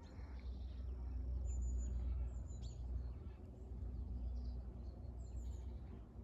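A few short, high songbird chirps, once or twice around the second mark and again near the end, over a steady low rumble.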